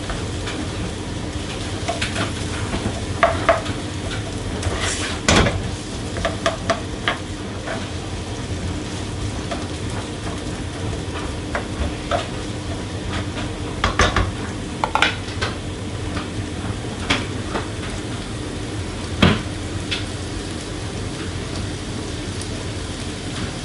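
Chopped onions sizzling in a little oil in a non-stick wok, frying until brown. A spatula stirs them, scraping and knocking against the pan now and then.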